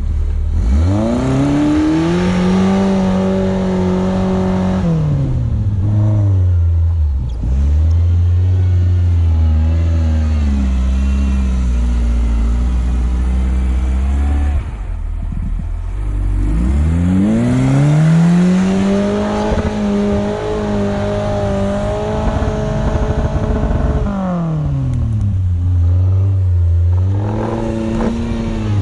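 Suzuki SJ410's small four-cylinder engine revving hard under load in snow: twice it climbs steeply, holds high for several seconds and drops back to a lower steady run, and it starts climbing again at the end.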